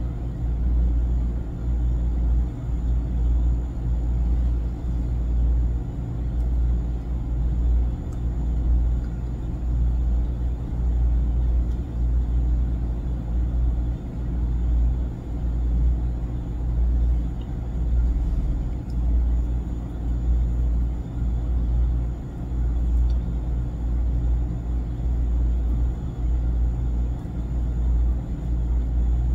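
A loud, low rumble with no clear pitch, swelling and easing every second or two.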